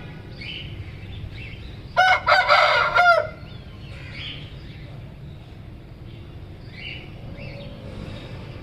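A rooster crows once, loudly, about two seconds in, lasting just over a second. Short high chirps of budgerigars repeat throughout.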